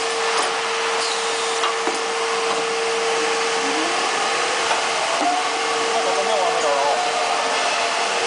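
Cable extrusion and coiling line machinery running: a steady mechanical whir with a single steady hum that stops near the end.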